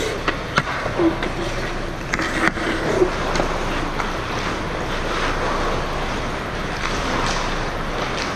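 Ice hockey skates scraping and carving on the ice, with several sharp clacks of sticks and puck in the first three seconds, over steady rink noise.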